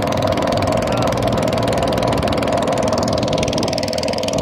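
Small wooden boat's engine running steadily underway, a fast, even chatter, heard from on board.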